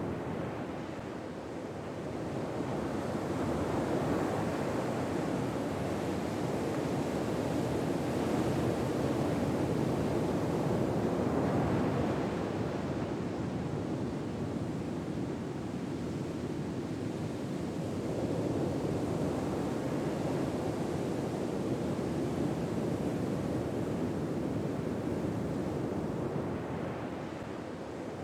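Ocean waves washing onto a shore: a steady rushing hiss that swells and falls back slowly, several seconds per surge.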